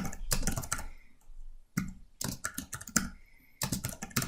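Typing on a computer keyboard: three short runs of quick keystrokes with brief pauses between them.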